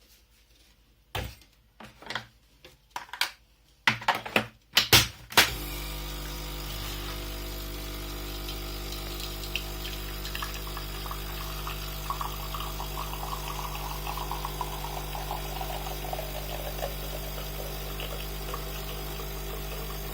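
A metal spoon tapping and clinking in a cup of hot coffee: a few louder knocks at first, then a rapid run of light taps whose ringing pitch slides steadily lower over several seconds, over a steady hiss. This is the hot chocolate effect, in which bubbles in the hot drink change the pitch of the cup's ring.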